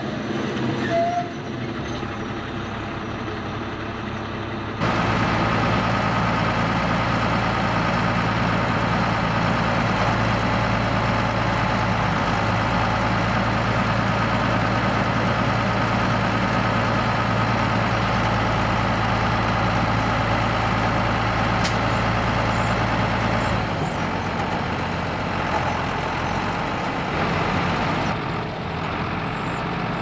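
Fendt Favorit 822 tractor's six-cylinder diesel engine running under load while its hydraulic dump trailer tips a load of soil. It runs steadily, gets louder about five seconds in, and drops lower about six seconds before the end.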